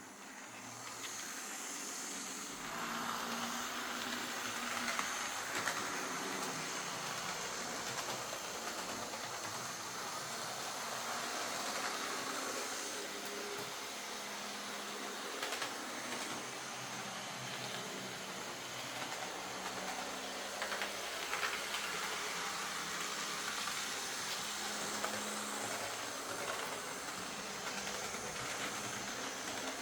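Lima Class 55 Deltic OO gauge model locomotive running along the track: a steady whirr from its DC motor and gears, with its wheels rolling on the rails and a faint hiss. It starts up at the outset and gets louder about two and a half seconds in. A replacement spur gear is fitted to cure the noise.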